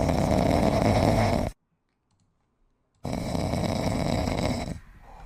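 A pet snoring loudly: two long snores, each lasting nearly two seconds, with a gap of complete silence between them.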